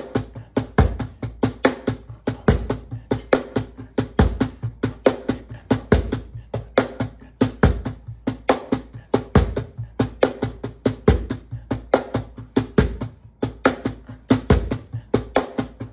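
Cajon played with bare hands in a steady sixteenth-note groove: fast, even strokes on the wooden front, with a deep bass stroke recurring about every second and three quarters between sharper, higher slaps and ghost notes.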